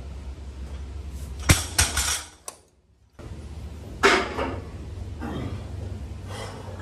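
A heavily loaded deadlift barbell dropped from lockout onto the gym floor: a sharp clang about a second and a half in, followed by the plates rattling and ringing for under a second. Another short loud burst comes about four seconds in.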